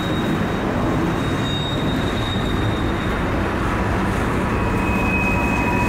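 Freight train cars (covered hoppers and a lumber-loaded flatcar) rolling past close by: a steady rumble and clatter of steel wheels on rail. Thin, high wheel-squeal tones ring over it, one early and another starting about four and a half seconds in.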